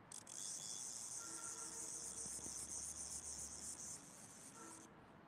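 Fishing reel's drag buzzing as a hooked catfish pulls line off the spool. It starts suddenly just after a click, runs steadily for about four seconds, then stops.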